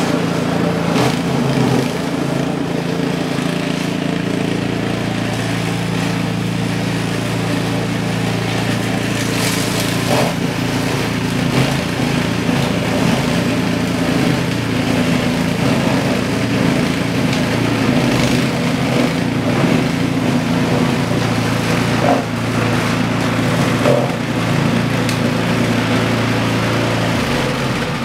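Poulan Pro single-stage snowblower's four-stroke engine running steadily while its auger throws snow, with a hissing spray of snow over the engine note. The engine is freshly repaired and now keeps running on its own fuel; it runs like a top.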